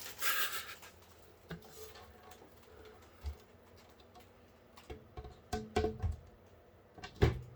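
Brief crinkling of protective plastic film coming off a tempered glass PC case panel, then scattered light knocks and clicks as the case panels are handled, with a small cluster about two-thirds of the way through and a louder knock near the end.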